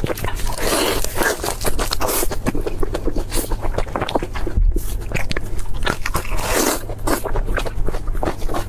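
Close-miked eating: chewing and crunching food, a dense run of crisp clicks with two longer crunchy bites, one about half a second in and another about two-thirds of the way through.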